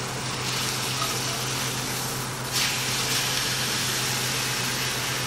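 Beef chuck roast sizzling hard as it sears in a very hot, smoking pan on a gas burner; the sizzle grows sharply louder about two and a half seconds in.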